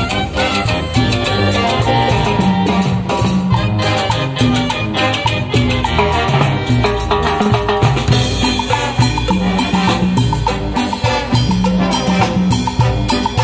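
A Peruvian banda show brass band playing live. Trumpets, saxophones and trombones carry the tune over a drum kit, timbales, congas and a bass drum.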